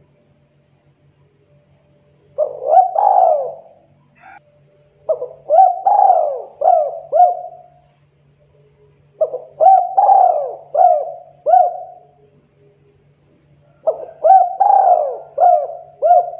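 Spotted dove cooing: four phrases of repeated arched coos, a few seconds apart, the last still going at the end.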